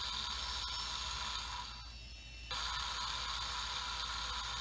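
Small brushed DC motor from a 2007 BMW M6 (S85) throttle actuator free-running on 12 volts with a steady, fairly quiet whir. The whir dips briefly about two seconds in, then runs on. The owner suspects this motor of causing the actuator to fault when battery voltage is low.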